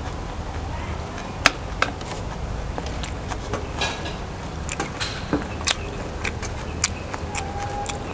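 Eating sounds: a mouthful of rice noodles being chewed, with scattered sharp clicks and ticks from chopsticks and mouth.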